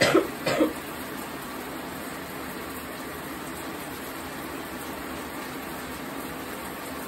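A woman coughs twice on cannabis smoke in the first moment, then only a steady low room hum remains.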